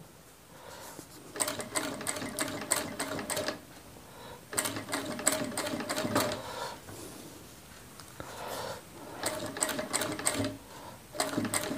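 Industrial flatbed sewing machine stitching in about five short runs of a second or two, a rapid even clatter of needle strokes with brief pauses between runs. The machine is turned down to slow speed and set to its longest stitch for a machine-sewn turpai (blind hem).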